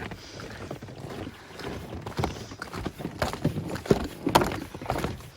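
Snowshoe footsteps crunching and scraping over ice and frozen snow, the shoes' spikes catching in cracks in the ice, with several sharper knocks about three to four and a half seconds in.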